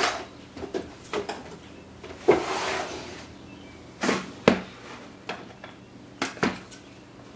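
Tools being picked up and set down on a workbench: a series of knocks and light clatters, with a longer rattling scrape about two seconds in.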